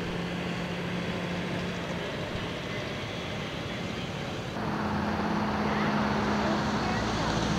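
Outdoor city ambience: a steady hum of street traffic with a faint constant drone. About halfway through it cuts abruptly to a louder traffic background.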